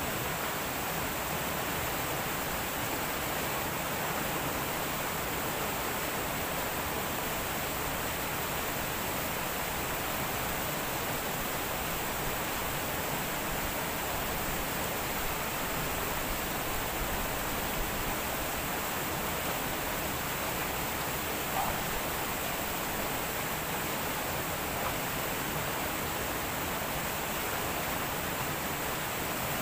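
A river rushing steadily over rocks and small rapids: a constant, even rush of water.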